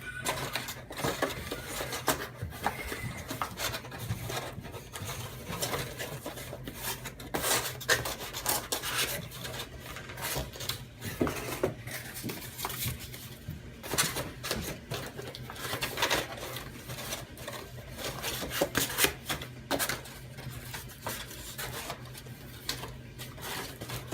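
Cardboard of a BCW card box being handled and its dividers folded and slid into place: irregular rubbing, scraping and sharp little clicks and taps throughout, over a faint low steady hum.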